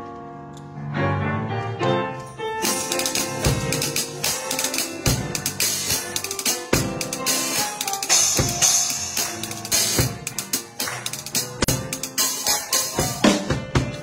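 Drum kit played live over sustained backing chords: the chords sound alone at first, then about two and a half seconds in the drums come in with fast, busy kick, snare and cymbal hits.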